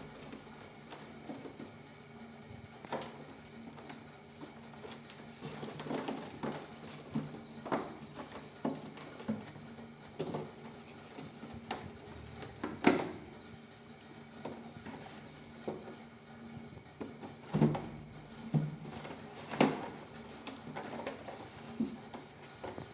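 Kittens playing: scattered taps, knocks and scuffling thumps, the loudest a sharp knock about halfway through, over a faint steady hum.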